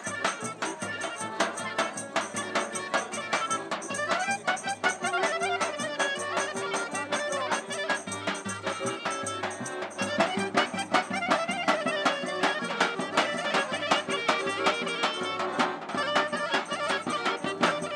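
Bulgarian folk dance music played live by a street band: clarinet leading the melody over accordion, a bass drum and a tambourine, with a steady fast beat.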